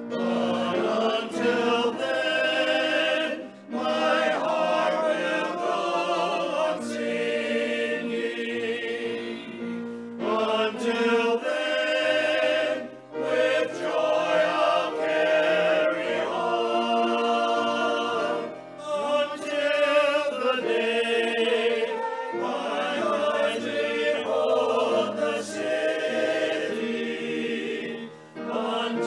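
Small mixed church choir singing a gospel song in harmony, with long held low notes of accompaniment underneath and short breaks between phrases.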